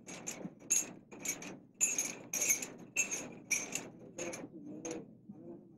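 Metal chains jangling in a quick, uneven rhythm, about three clinks a second, the sound of leg shackles on a prisoner being walked by guards; the clinks thin out and fade near the end.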